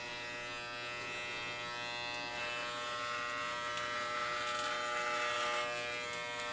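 Cheap electric dog clippers running with a steady buzz while trimming body hair.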